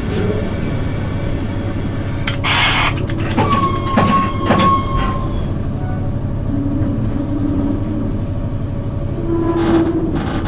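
Running noise inside the cab of an EP1 electric locomotive on the move: a steady low hum. A short hiss comes about two and a half seconds in, a brief high tone with a few clicks about a second later, and another short burst near the end.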